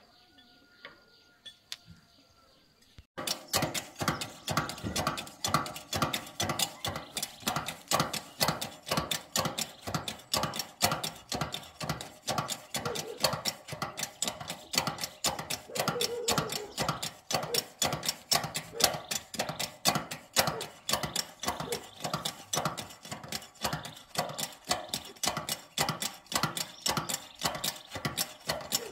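Hand-tool work on a tractor tyre: fast, even strokes, about three a second, starting about three seconds in and keeping up a steady rhythm.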